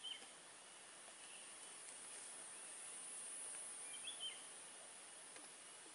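Faint countryside ambience: a steady high-pitched insect drone, with a bird's short chirps right at the start and again about four seconds in.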